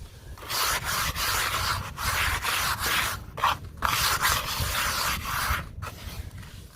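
Dry, gritty earthy crumbles being crushed and rubbed, giving a dusty scratching hiss in several long strokes, with short breaks about halfway through and again near the end.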